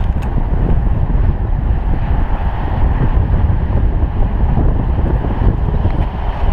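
Wind buffeting an action camera's microphone on a moving bicycle: a steady, loud low rumble of riding noise.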